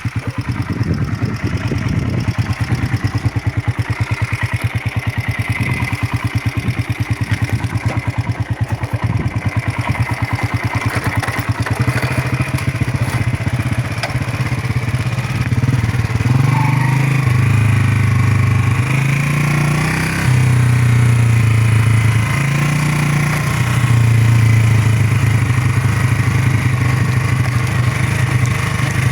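Motorcycle engine running: a slow, even idle with distinct firing pulses for the first twelve seconds or so, then steadier and louder, with the engine pitch rising and falling several times as the throttle is worked.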